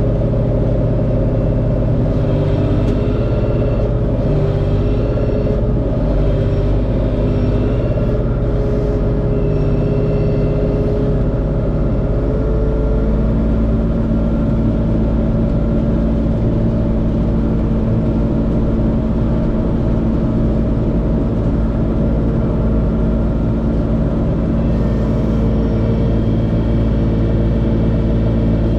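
LS MT357 tractor's diesel engine running steadily under work, with a change in its engine note about halfway through.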